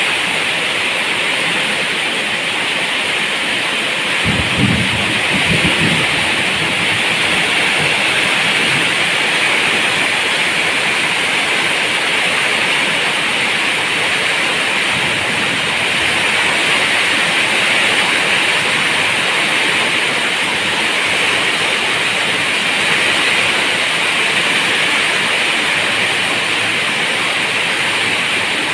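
Steady heavy rain falling. About four seconds in, a brief low rumble sounds under the rain.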